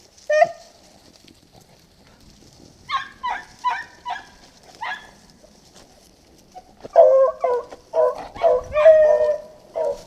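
Beagles baying on a rabbit's trail: a single yelp, then a quick run of about five yelps a few seconds in, and from about seven seconds on steady, almost unbroken baying as the pack runs the scent.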